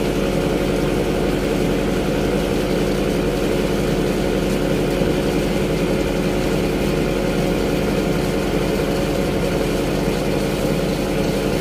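A ship's engine running with a steady, unchanging drone.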